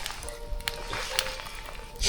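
Music with held notes, and scattered clicks and taps over it.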